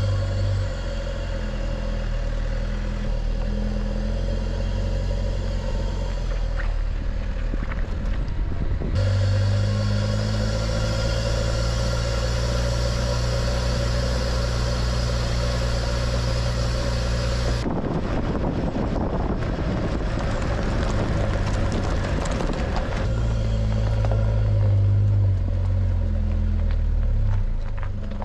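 Mitsubishi L200 pickup's engine running at a steady pace while driving off-road, in a few stretches that change abruptly about 9 and 18 seconds in. Rougher, noisier rumbling runs for a few seconds after the second change.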